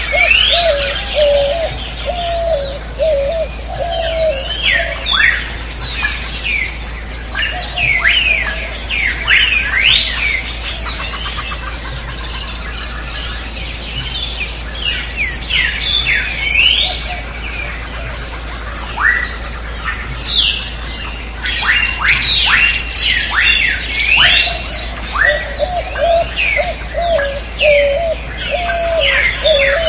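Jungle ambience with many birds chirping in quick rising and falling whistles, and a lower warbling call that repeats in the first few seconds and again near the end. A steady low hum runs underneath.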